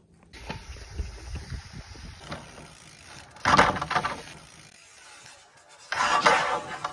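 Mountain bike riding over a gravel and leaf-litter dirt trail: a low rumble of tyres on the ground, with two short, louder scrapes, one about three and a half seconds in and one near the end.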